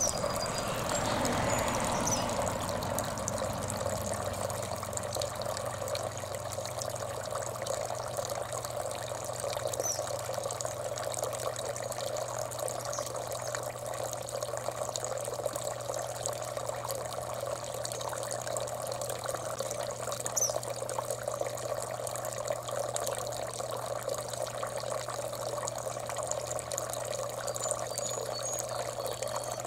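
Steady trickling, running-water noise over a low steady hum, with a few faint short high chirps now and then.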